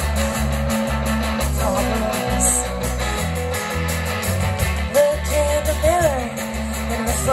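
Live rock band playing: electric guitars over bass guitar and drums, with sliding notes about five to six seconds in.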